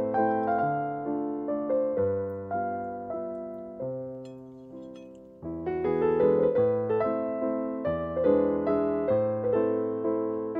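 Background piano music: a gentle melody of struck notes that die away. It thins out and fades about four to five seconds in before the playing picks up again.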